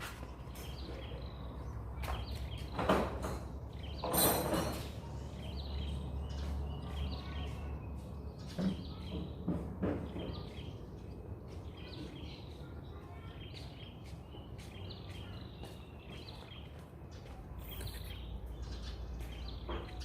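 Small birds chirping repeatedly over a steady low hum, with two brief louder bursts of noise about three and four seconds in.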